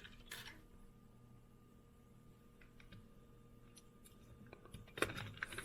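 Small die-cast metal toy cars being handled, giving a few faint clicks and taps over quiet room tone, with a short cluster of louder clicks about five seconds in.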